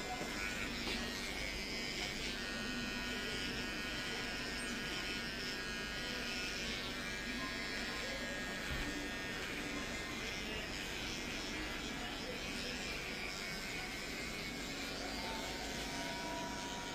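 Electric hair clipper running steadily.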